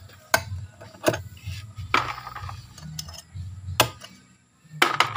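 Knife blade chopping down on a wooden board, cutting the tips off freshwater snail shells: a sharp knock roughly once a second, with a quick double knock near the end.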